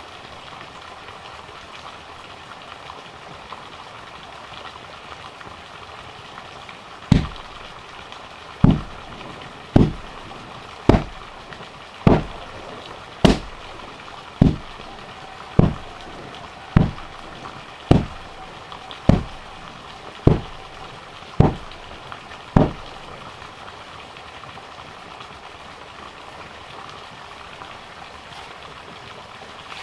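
A wooden hand tamper rammed down on loose soil, compacting an earth floor: about fourteen dull thuds, one every second or so, starting about seven seconds in and stopping a little past the two-thirds mark. A steady hiss sits under them.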